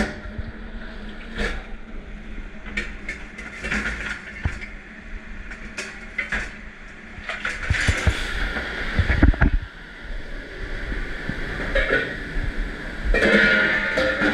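Dish pit clatter: dishes and racks knocking over the steady running noise of a commercial dish machine, with a heavier low thump about nine seconds in.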